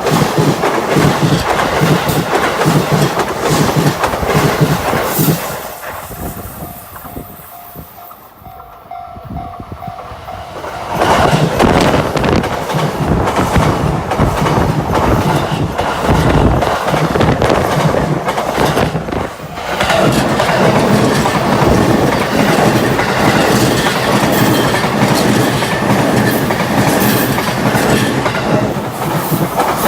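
A Chuo Line train running on the track, its wheels clattering over the rails. The sound drops away for a few seconds partway through, then comes back up loud.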